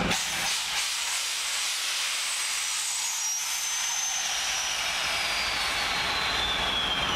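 Steady hissing around a passenger train standing at a station platform, with almost no low rumble at first, the low end filling back in after about four seconds. A faint high whine slowly falls in pitch throughout.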